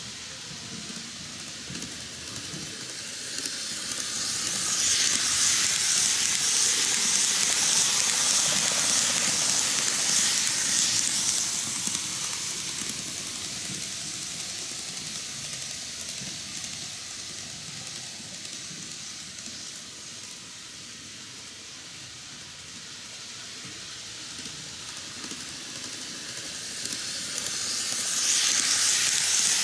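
N-gauge model electric trains running on the rails, a high hissing rattle of wheels and motors. It swells loud as a train passes close by from about four to twelve seconds in, falls back while a train runs on the far track, and rises again near the end as another train approaches.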